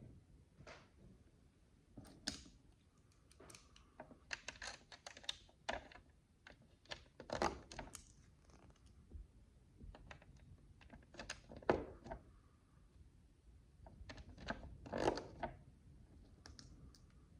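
Tiny plastic micro bricks clicking and rattling as they are handled and pressed together, in irregular clusters of small sharp clicks.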